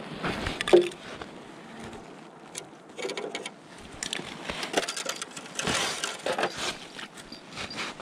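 Handling noise from hand-lining a tip-up on the ice: snowsuit rustling and gloved hands working the line, with irregular scrapes and clicks and a sharp knock just under a second in.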